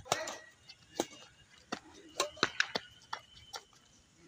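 Badminton rackets hitting a shuttlecock in a rally: sharp single pocks about a second apart, with a quick cluster of clicks and taps a little after halfway.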